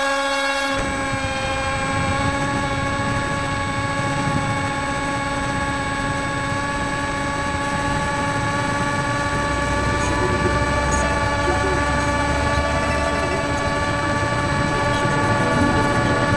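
Bixler 1.1 electric glider's brushless motor and pusher propeller running at a steady high whine under power as the plane climbs out, heard close up from the onboard camera, with the rush of air over the airframe.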